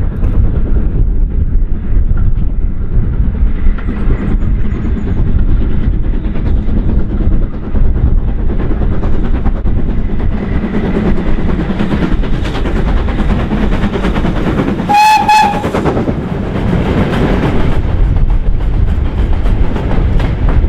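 Steam locomotive hauling a passenger train past at close range, its exhaust working hard and its wheels running on the rails, with one short whistle blast about fifteen seconds in.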